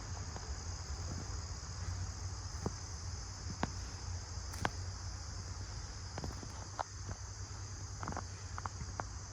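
Steady high chorus of insects in the woods, with occasional clicks and crunches of footsteps on rocky ground.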